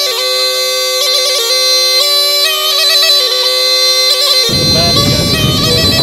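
Music: a bagpipe-like reed melody over a steady drone. About four and a half seconds in, a low rumbling noise comes in beneath it.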